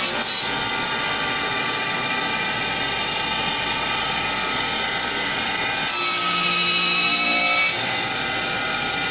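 Automatic CNC wood lathe running as its cutting and sanding heads shape a curved wooden leg: a steady mechanical whine with several high tones over a hiss of cutting. About six seconds in it grows louder, with a lower hum joining for under two seconds, then drops back.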